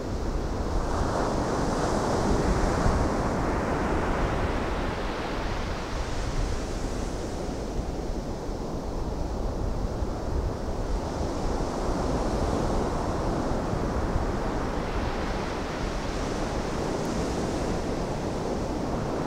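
Ocean surf breaking and washing up the beach in a steady rush that swells and eases every several seconds, with wind buffeting the microphone.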